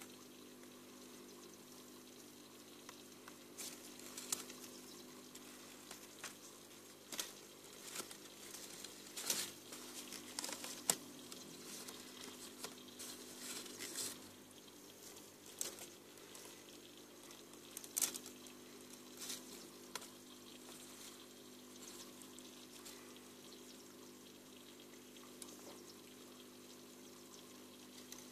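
Small vivarium waterfall trickling steadily over a low pump hum, with scattered faint clicks and rustles, most of them between about 4 and 20 seconds in.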